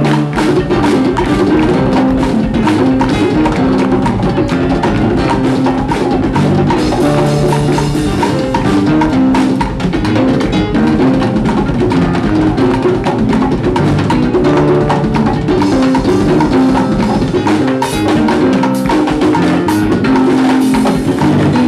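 Live salsa band playing a driving groove, with a busy percussion section of drum kit, timbales and congas.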